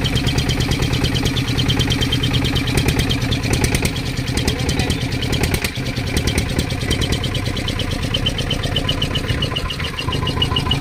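A fishing boat's engine running steadily with a fast, even chug.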